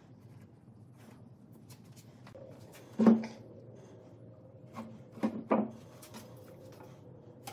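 Heavy pieces of branch wood knocking on a wooden workbench as they are handled and set down: one clear knock about three seconds in, then two more close together about two seconds later.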